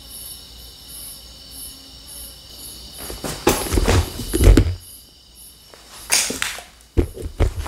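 Crickets chirping in a steady, even pulse. Loud rustling and knocking from equipment being handled and repositioned breaks in about three seconds in, and again from about six seconds in.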